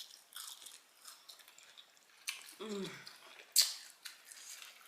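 A person chewing fried chicken, with scattered wet mouth clicks and smacks. About halfway through comes a short low vocal sound that falls in pitch, and a sharp click follows shortly after, the loudest sound in the stretch.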